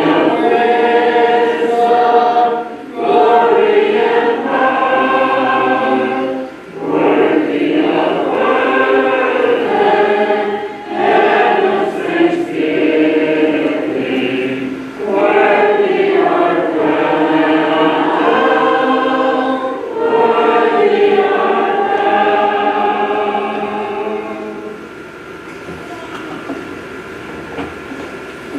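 Congregation singing a hymn unaccompanied in several voice parts, in long held phrases with short breaths between; the singing ends about 25 seconds in, leaving a quiet room hum.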